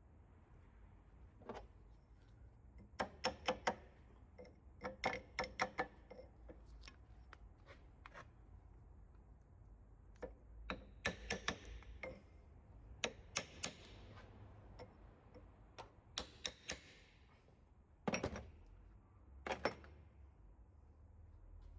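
Hand tools working on a car's wheel-bearing assembly: several quick runs of sharp metallic clicks and taps, with two heavier knocks near the end.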